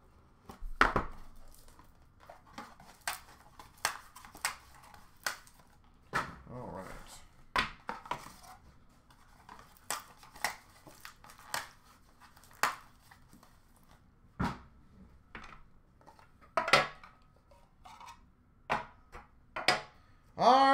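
Hands opening a boxed set of hockey cards: cardboard and packaging rustling and tearing, with irregular sharp clicks and knocks as the box, a plastic card case and the cards are handled.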